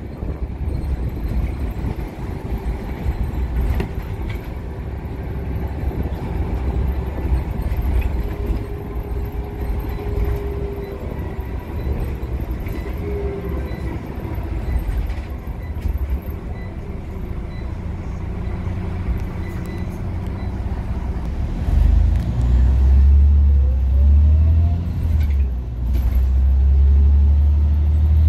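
Scania OmniCity bus driving, heard from inside the saloon: steady engine and road rumble with a faint whine from the ZF automatic gearbox and a few light rattles. Near the end the rumble grows louder and a whine rises in pitch as the bus pulls harder.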